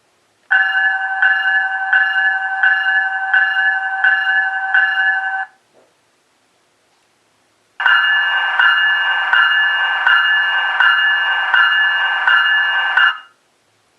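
Recorded electronic locomotive bell (e-bell) played by an ESU LokSound V4.0 sound decoder through a small model-locomotive speaker. It rings in two runs of about five seconds each, one strike roughly every 0.7 s, with about a two-second pause between them.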